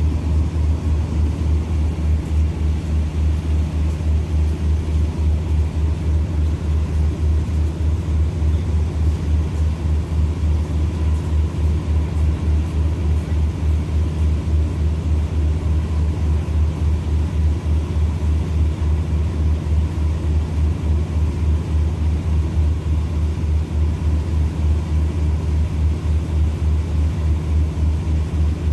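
Diesel engine on a standing passenger train idling: a steady low drone with a fast, even throb.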